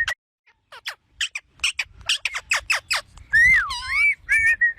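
Pet parrot calling: a quick run of sharp, falling chirps, about six a second, then from about three seconds in a louder whistle that swoops down and back up, followed by short level whistled notes.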